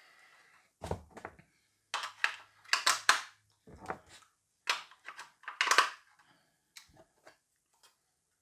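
Hands handling a smart video doorbell at its battery compartment: a series of sharp clicks and knocks, most frequent in the middle and thinning out near the end.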